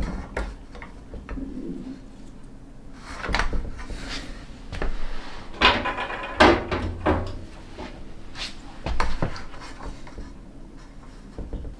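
Handling noise from hand tools and small parts being picked up, set down and worked: a scattered run of clicks, knocks and rattles, busiest in the middle.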